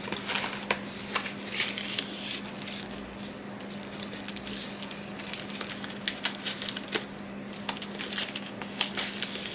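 Screen protector packaging being opened and handled: plastic crinkling and rustling with many sharp clicks and taps, over a steady low hum.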